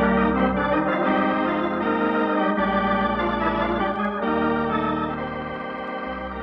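Organ music bridge between acts of a radio drama: sustained chords that change every second or so, fading toward the end.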